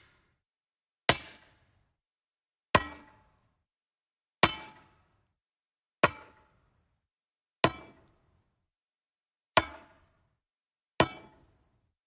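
Metal striking wood: single sharp blows, seven in all, one every one and a half to two seconds, each with a short ringing clang that dies away quickly.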